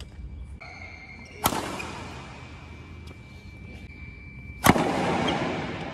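Two hard smashes of a shuttlecock with a Yonex Astrox 100ZZ badminton racquet, about three seconds apart: each a sharp crack followed by a long echo in the hall, the second louder.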